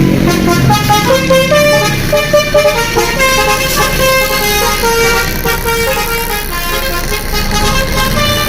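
A bus's basuri 'telolet' musical horn playing a quick tune of stepping notes, starting about half a second in, over a low engine and street rumble.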